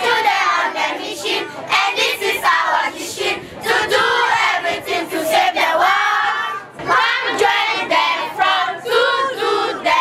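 A large crowd of children shouting and cheering, many voices at once.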